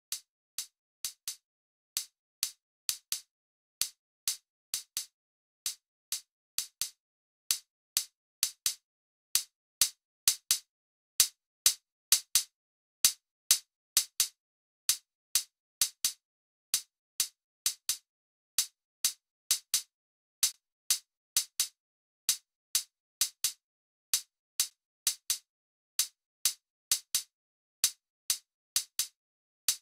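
Electronic drum-machine percussion playing on its own: short, bright hi-hat-like ticks with no low end, about two a second in a repeating pattern. They get louder from about seven seconds in, peak around eleven seconds, then settle a little.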